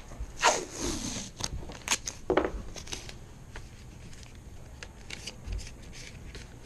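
Blue painter's tape being pulled off its roll in a few quick rips, torn and pressed down onto a PVC sill pan, followed by scattered small clicks and rustles.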